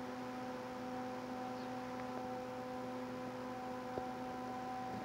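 A steady hum with several evenly spaced overtones over a faint hiss, with a faint click about four seconds in.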